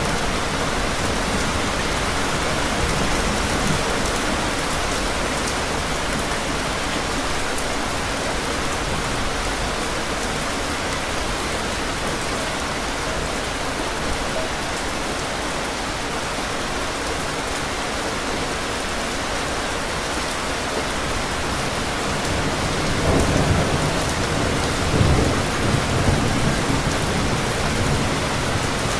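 Steady heavy rain pouring down in an even hiss. Rolling thunder rumbles low for several seconds about three-quarters of the way through.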